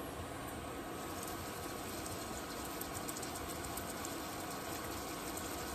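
A steady low mechanical hum, with faint light ticks as seasoning is shaken from a canister into a pot of ground beef.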